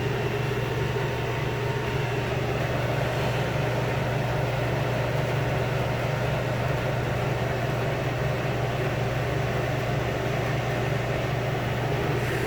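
Two old room air conditioners running together, their compressors and fans giving a steady low hum under a rush of air.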